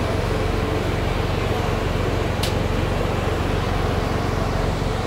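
Steady low hum of a diesel engine running at idle, with one sharp click about two and a half seconds in.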